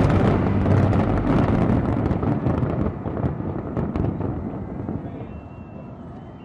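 Fireworks finale crackling: a dense run of rapid pops and crackles from many shells at once, dying away steadily as the last bursts burn out.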